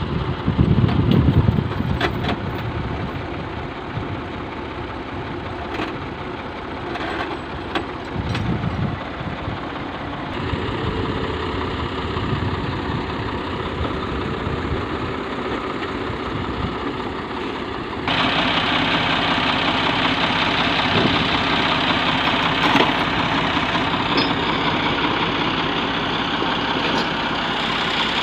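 Ford 4000 tractor engine running steadily. About two-thirds of the way through it turns suddenly louder and brighter.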